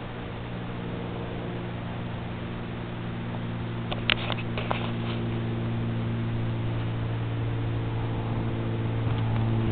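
A steady mechanical hum of several held tones, slowly growing louder, with a few sharp clicks a little after the midpoint.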